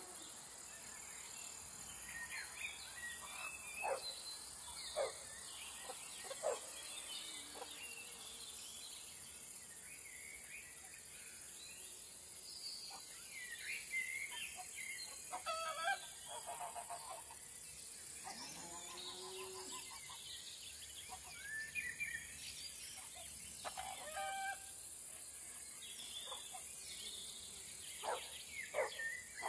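Outdoor rural ambience: scattered bird chirps over a steady high insect hiss, with a few sharp clicks and two short lower-pitched animal calls around the middle.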